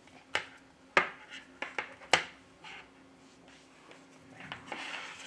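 Handling of small tools and parts during an iPhone disassembly: a run of about five sharp clicks and taps in the first two seconds, then about a second of scraping and rustling near the end, over a faint steady hum.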